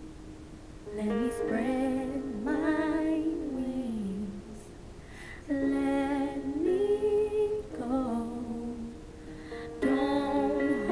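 A young woman singing with vibrato over a backing track of sustained chords, in several phrases of a few seconds each with short gaps between.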